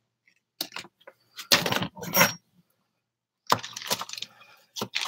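Foil wrapping being crinkled and pulled off a block of cream cheese: a run of short rustling bursts, then a longer scratchy rustle near the end.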